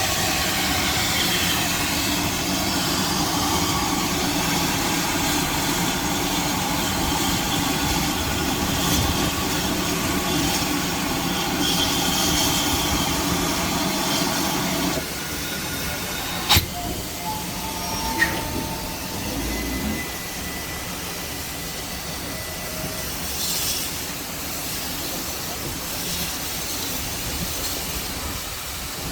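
Train running on the rails with squealing wheels, a loud steady sound that cuts off about halfway through; a sharp click and a few faint short tones follow.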